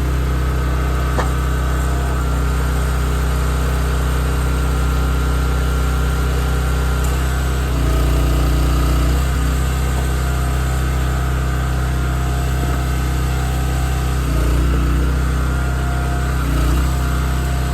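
Gas engine of a hydraulic log splitter running steadily. It swells louder for a second or so about eight seconds in and twice more near the end.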